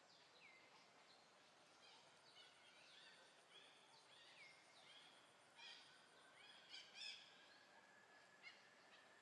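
Faint outdoor ambience of wild birds calling: scattered chirps and short downward whistles, with a louder cluster of calls about five to seven seconds in.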